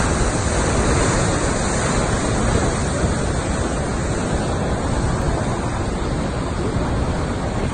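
Steady rush of fast, turbulent water, foam-flecked and churning.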